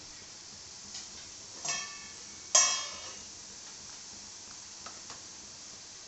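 Metal kitchenware clinking twice, each strike ringing briefly like a small bell, the second louder. A faint click comes before them and two light ticks after, over a faint steady hiss.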